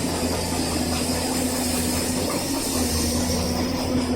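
Excavator diesel engine running steadily, a constant low drone with a steady hum and hiss over it.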